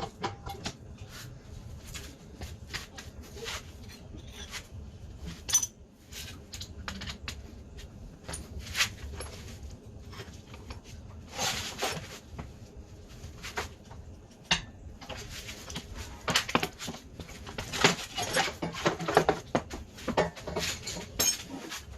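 Metal hand tools and loose metal parts clinking and clattering in irregular knocks, with busier stretches about halfway through and near the end.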